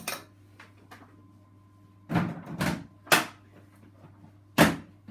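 A few sharp knocks and clunks of things being handled: a quick pair about two seconds in, another a moment later, and a louder one near the end, over a faint steady hum.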